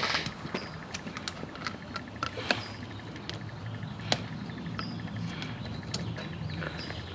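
Irregular sharp clicks and clinks of hand tools working on metal engine parts while the coolant flange is being loosened, over a steady low hum.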